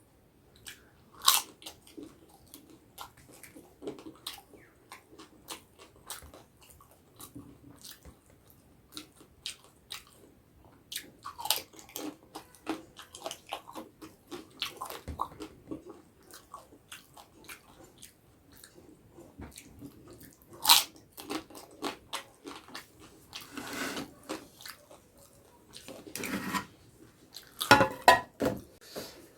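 Close-up eating sounds: crisp snack food being bitten and chewed, with irregular sharp crunches and wet chewing throughout.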